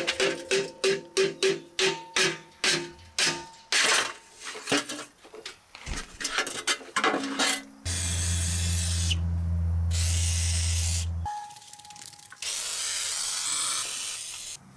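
Aerosol can of WD-40 Specialist Rust Release Penetrant spraying in two hissing bursts onto rusted, seized fittings: one of about three seconds starting about 8 s in, and a shorter one near the end.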